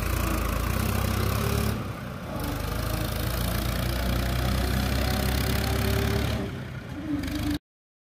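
An engine running steadily with a low hum, until the sound cuts off abruptly near the end.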